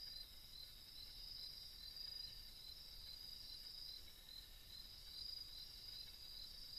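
Faint insect chorus: a steady high trill, with a second high chirp pulsing evenly about three times a second.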